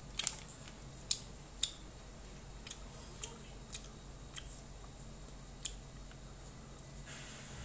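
Chewing a yogurt gummy candy gone hard and very chewy from the fridge: sparse, irregular sharp mouth and teeth clicks, about seven in all, over a faint steady low hum.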